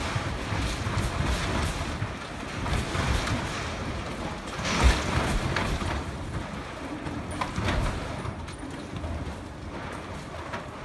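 Six-story cold-formed steel-framed building shaking on a shake table during a simulated earthquake: uneven rumbling with scattered knocks and bangs, the loudest bang about five seconds in.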